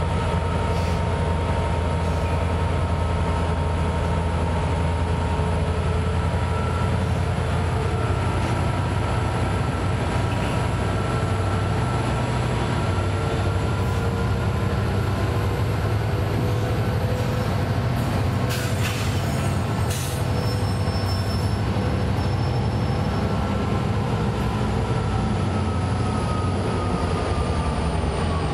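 Norfolk Southern SD60E and SD70M-2 diesel locomotives creeping past, their EMD 710 engines running with a steady low hum. Thin whining tones drift slowly in pitch over it, and a few light clicks come about two-thirds of the way through.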